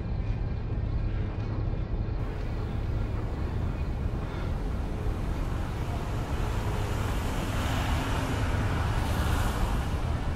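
Steady low wind rumble on the microphone of a moving bike, mixed with road and city traffic noise that swells in the second half.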